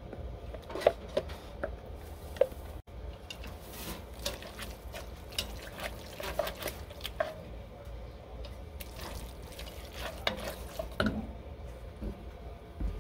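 A wooden spoon stirring a wet mixture of shredded chicken, cheese, buffalo sauce and ranch dressing in a heavy black pot: irregular squelching and scraping, with occasional sharp knocks of the spoon against the pot.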